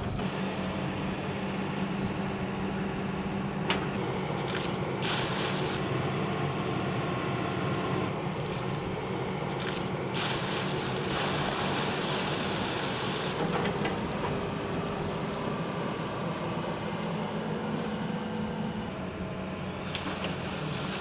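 Hydraulic excavator's diesel engine running steadily, with rushes of water and wet sand pouring from its bucket, the longest lasting about three seconds from about halfway through. A single knock a few seconds in.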